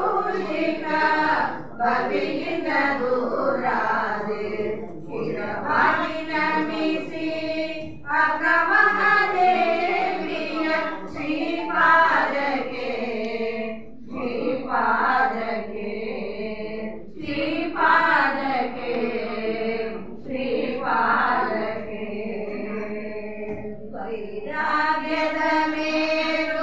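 Several women singing a Kannada song together into a microphone, with no instruments, in sung phrases broken by short breaths every few seconds.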